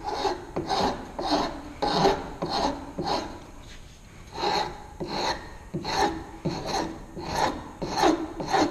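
Round file rasping across the curved end of a wooden board clamped in a vise, in even strokes about two a second with a short pause about three and a half seconds in: smoothing the coping-saw cut of the end radius.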